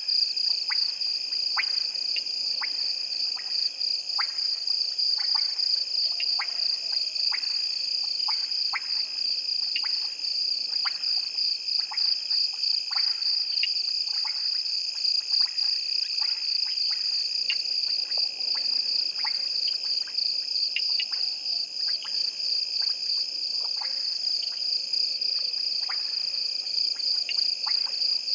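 Night chorus of frogs and insects: a steady high-pitched trill with frogs giving short, sharp clicking calls, irregularly about one or two a second.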